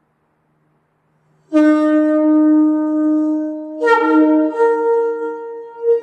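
Shofar (ram's horn) blown in one long blast. It starts suddenly about a second and a half in on a low note, then leaps up to a higher note about two seconds later and holds it.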